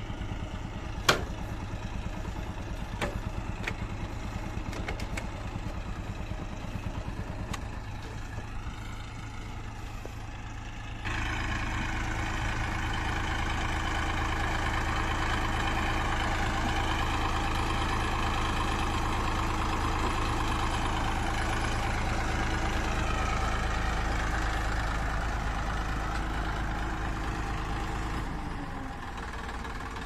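Massey Ferguson 241 DI tractor's three-cylinder diesel engine running, with some light clatter and a few knocks at first. About a third of the way in it turns louder and steady while the hydraulic lift raises the loaded tipping trolley, dropping back shortly before the end.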